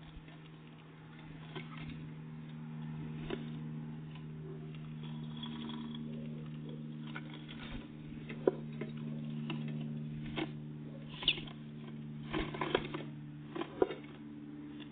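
Small birds (great tits and blue tits) at a feeder: scattered small taps and clicks from pecking and landing, more frequent in the second half, with one short chirp about eleven seconds in. A steady low hum runs underneath.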